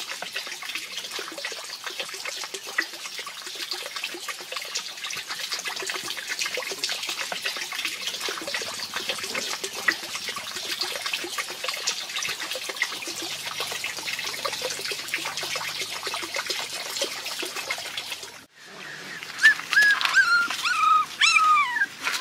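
Steady trickle of running water for most of the stretch. Near the end, after a cut, a litter of puppies whimpers with several high whines that fall in pitch; these are the loudest sounds.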